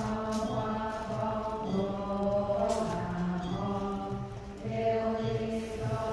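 A group of voices chanting in long, held notes that shift pitch every second or so.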